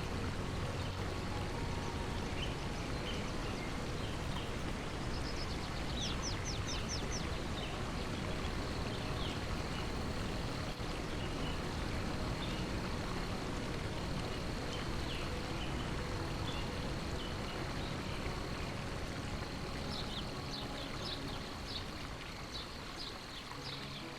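Forest nature ambience: a steady rush of running water, with birds chirping in quick runs of short high notes, a burst about six seconds in and more near the end.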